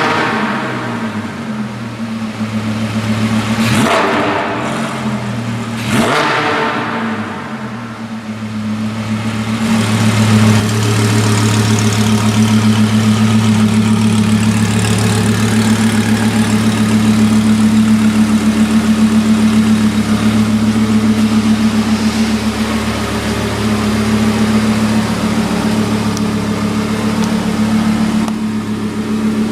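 Audi R8 V10 Plus's 5.2-litre V10 through a Larini aftermarket exhaust, revved sharply three times in the first seven seconds, each rev dropping straight back. From about ten seconds in it settles into a loud, steady idle.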